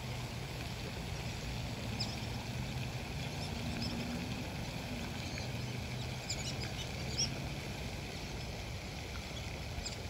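Outdoor ambience: a steady low hum that stops about two-thirds of the way through, with a few faint, short high bird chirps.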